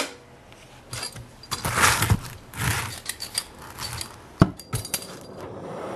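Metal tools clinking and scraping against a Corvair carburetor linkage rod as it is cranked on to bend it, with a sharp metallic knock about four and a half seconds in.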